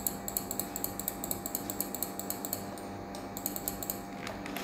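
Computer mouse clicking rapidly and evenly, about six clicks a second, with a short pause about three seconds in, over a faint steady hum.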